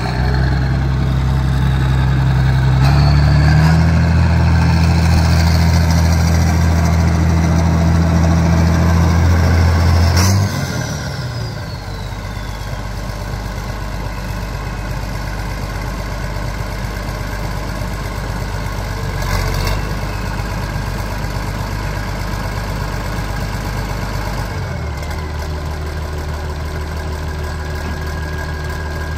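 White 2-105 tractor's diesel engine running hard for about ten seconds, the pitch stepping up slightly about three seconds in. The revs then drop and it settles to a steady idle, with a high whine winding down as they fall.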